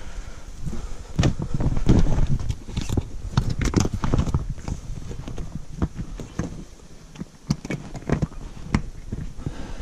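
Irregular knocks, taps and rustling, busiest in the first few seconds and sparser in the second half.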